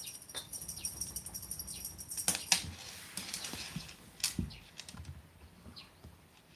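Light clicks and taps of a feather cat toy on a string bouncing and dragging across a wooden floor, with a louder knock about two and a half seconds in and another near the four-second mark. A faint high steady ringing runs through the first half and stops with the loud knock.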